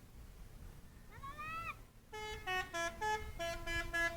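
Box truck's multi-tone telolet horn playing a fast tune of short steady notes, starting about halfway through. About a second in, before the horn starts, there is a short high cry whose pitch rises and then falls.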